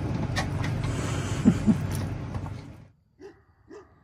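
Steady low indoor hum with a few light clicks and two short rising whines from an excited golden retriever near the middle. After an abrupt cut the hum is gone and a dog barks three times, about half a second apart.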